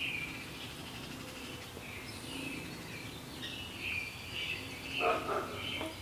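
Songbirds chirping, a run of short high chirps repeating over a low background hush, with one brief, louder, lower sound about five seconds in.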